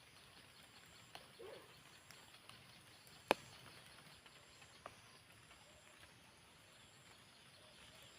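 Quiet outdoor background with a few scattered light clicks and knocks, the loudest a single sharp click about three seconds in.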